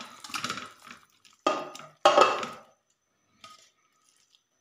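Raw beef chunks sliding off a plate and dropping into an empty metal pressure cooker, pushed in by hand: a run of wet thuds and knocks against the pot, the two loudest about one and a half and two seconds in.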